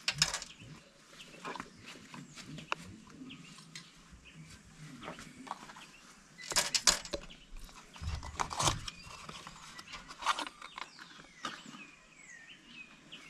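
Intermittent clicks and rustles of hands handling a small cardboard bulb box, loudest around the middle, with a few faint bird calls in the background near the end.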